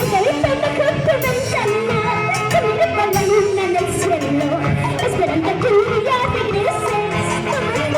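Huancavelica-style huayno played by a band: a wavering lead melody over a full accompaniment with percussion hits, in an instrumental passage between sung verses.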